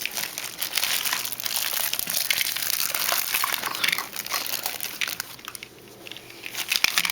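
Plastic wrappers and packaging crinkling as they are handled, with small clicks and knocks mixed in. It eases off for about a second a little past the middle, then picks up again.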